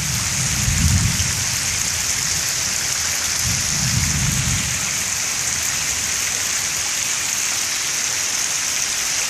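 Heavy rain falling steadily on pavement and standing water, with two low rumbles, about a second in and again around four seconds in.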